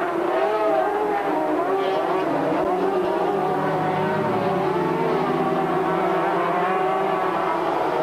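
Several racing sidecar outfits' 500 cc two-stroke engines running at high revs, their pitches rising and falling together as the pack races past.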